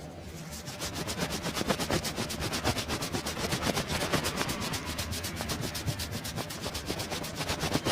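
A barber's hands rubbing vigorously over a customer's hair and scalp during a head massage: fast, even, scratchy strokes, several a second, growing louder within the first second.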